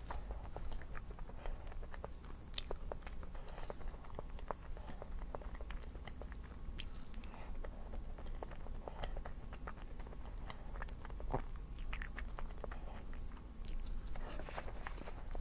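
A person eating close to the microphone: biting and chewing, with many small sharp clicks and crunches scattered throughout, over a low steady hum.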